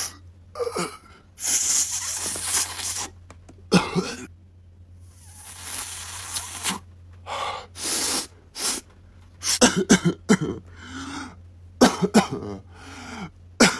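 A person coughing in repeated harsh fits, with long noisy breaths between them, over a faint steady low hum.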